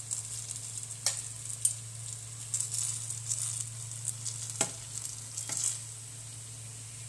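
Banana fritters deep-frying in hot oil in a pan, with steady crackling and sizzling; the stove has just been switched off and the oil is still hot. A metal spatula turning the fritters clicks against the pan twice, about a second in and past the middle.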